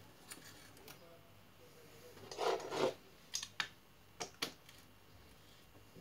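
Metal parts of a Shimano XT crankset being fitted onto the bottom bracket spindle: a short rough scrape of metal sliding on metal about two and a half seconds in, then four sharp clicks over the next two seconds.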